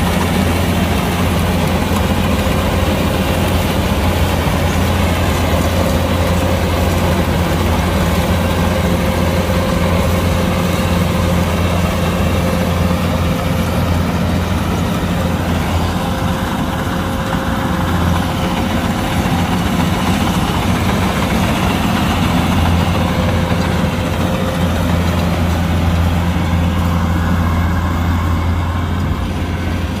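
Kubota DC-105X combine harvester's diesel engine and machinery running steadily: a constant low drone with a faint steady whine over it.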